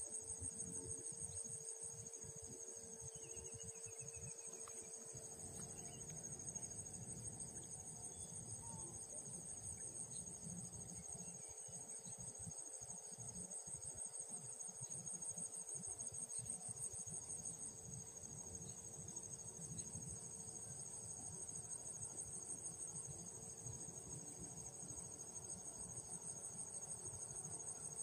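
Crickets chirping in a steady, high-pitched chorus with a fast pulse, with a faint steady hum underneath.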